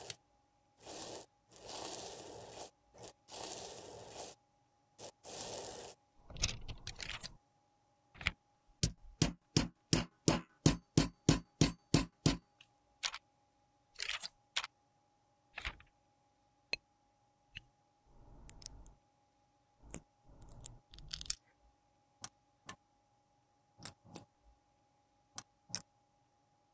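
Metal spatula scraping crumbly pressed eyeshadow powder out of its pan in several short strokes. Then comes a fast, even run of sharp taps, about four a second for roughly four seconds. After that, scattered light ticks and a couple of soft rubs.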